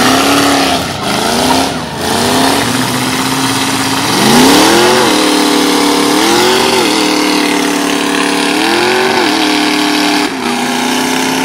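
Demolition-derby pickup truck engine revving hard in repeated surges and held at high revs in between, straining as the trucks push against each other.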